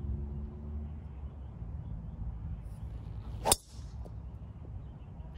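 Driver striking a rubber golf ball off the tee: one sharp impact about three and a half seconds in, over a steady low rumble.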